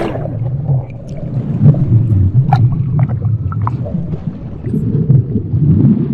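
Muffled churning water heard underwater around a swimmer, a low rumble with bubbles gurgling and scattered small clicks and pops.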